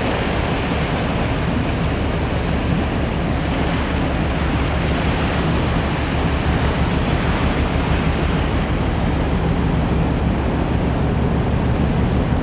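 Wash waves from a passing cargo ship surging on the shore, a steady rushing of water mixed with wind buffeting the microphone, over a low steady hum.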